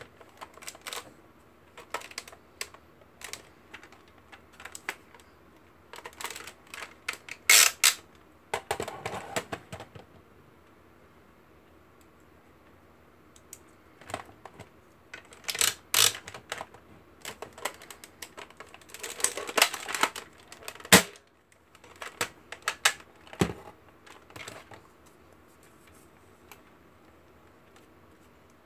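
Hard plastic clicks, knocks and rattles as a Buzz Bee Air Warriors Stryker Force foam dart blaster and its foam darts are handled. The sounds come in short clusters with quiet gaps between them, and the sharpest clicks fall about two-thirds of the way through.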